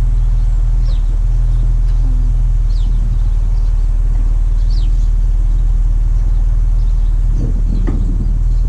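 Car engine idling steadily while the car is eased backwards, a constant low hum. A few short, high, falling bird chirps come through over it.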